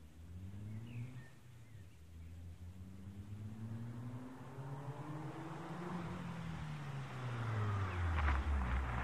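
Renault Clio Sport 172's two-litre four-cylinder, breathing through an aftermarket EPS sport exhaust, accelerating toward the listener. Its note rises in pitch and grows louder, dropping back briefly about six seconds in. Near the end, loose gravel crackles under the tyres as the car nears.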